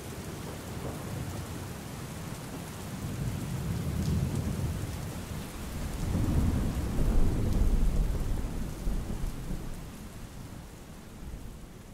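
Steady rain falling, with a low roll of thunder that swells twice, loudest in the middle, then fades toward the end.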